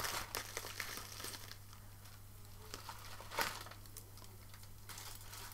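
A small packaging bag being worked open and handled, with faint crinkling and rustling and one louder rustle about three and a half seconds in.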